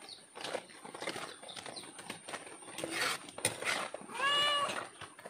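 A hungry domestic cat gives one drawn-out meow about four seconds in, begging for food. Faint scrapes and a sharp knock come from a metal ladle stirring a cooking pot.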